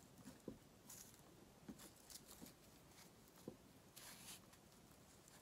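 Near silence with faint, scattered rustles and light ticks from fresh flower stems being handled: baby's breath sprigs being gathered against a spray rose.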